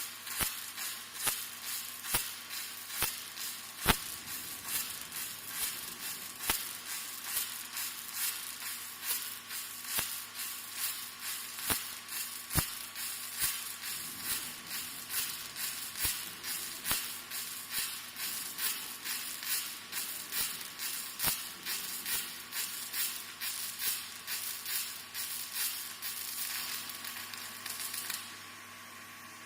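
Gas metal arc (MIG/MAG) welding arc crackling and sizzling as a cobot-held torch lays a weld, with a regular pulse about two to three times a second. The arc cuts off about 28 seconds in.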